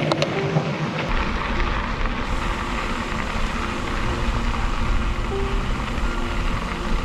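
Wind rumbling on a bike-mounted camera's microphone while cycling, getting heavier about a second in, with faint music underneath.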